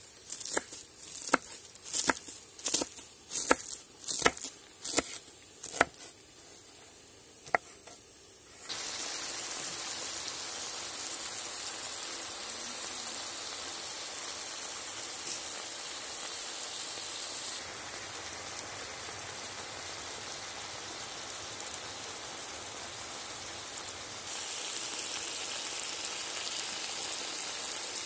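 A knife chopping parsley on a wooden cutting board, about three chops a second for the first six seconds. After about nine seconds it gives way to a steady sizzle of chicken and pork stewing in red wine in a saj pan.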